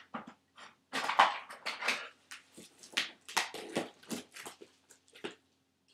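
Rummaging through things while searching for a pen: a string of short, irregular rustles, knocks and clatters.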